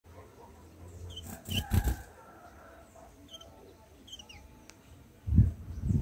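A few short, high chirps of white-eyes at a nest with nestlings, some notes falling in pitch. There is a burst of rustling with low thumps about a second and a half in, and louder low thumps near the end as the adult white-eye lands at the nest.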